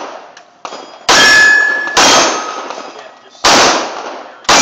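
.45 ACP pistol fired four times, roughly a second apart. Each loud shot is followed by a fading ring, the steel plate targets ringing when hit.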